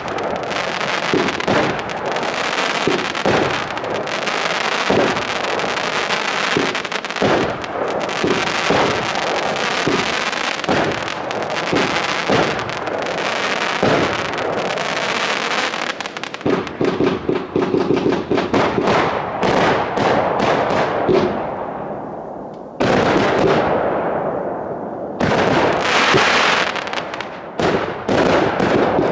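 Startrade Feuerzauber XL compound fireworks battery firing: a dense run of bangs and crackling, turning into quick rapid-fire volleys in the second half, with a short fading lull a few seconds before the end.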